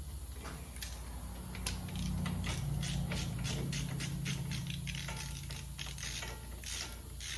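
Hand ratchet clicking as it is worked back and forth, about three or four clicks a second, loosening the caliper mounting bracket bolts with an E20 inverted Torx socket, over a steady low hum.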